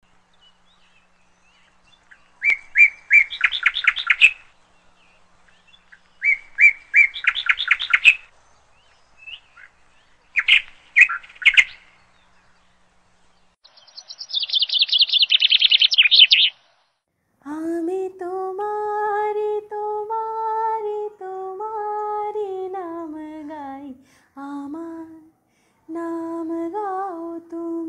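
A songbird singing three short phrases of quick repeated chirps, then a fast high trill. Then a woman's wordless humming begins, long held notes that slide up and down between pitches.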